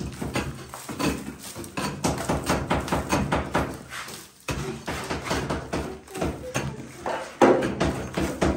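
A small pick-like hand tool chopping into a mud-and-straw plaster wall in quick, irregular blows, several a second, with loose earth crumbling away as the layer is stripped down to the adobe. There is a brief pause a little past halfway.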